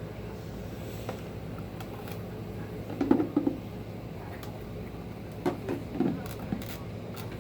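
Light plastic knocks and clicks from handling the Hoover Power Scrub carpet washer's removable dirty-water recovery tank, in two short clusters about three and six seconds in, over a steady low hum.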